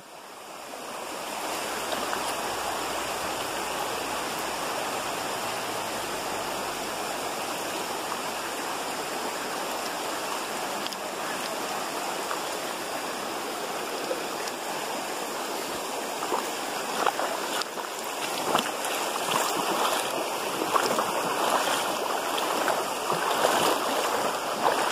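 Shallow river running over a rocky bed, a steady rushing of water. In the last third, splashes of feet wading through the water come and go over it.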